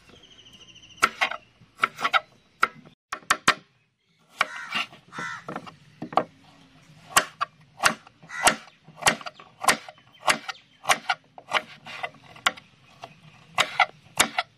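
Kitchen knife slicing small onions on a wooden cutting board: a steady run of sharp knocks as the blade strikes the board, about one to two a second, with a short break about four seconds in.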